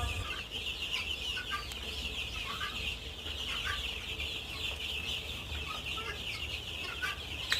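A crowd of Egyptian Fayoumi chicks peeping continuously, many high chirps overlapping into a steady chorus.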